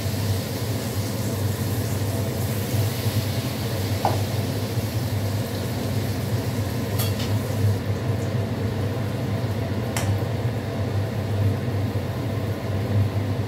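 Batter-coated egg omelette pieces deep-frying in hot refined oil in a kadai, a steady sizzle, with a few sharp clicks.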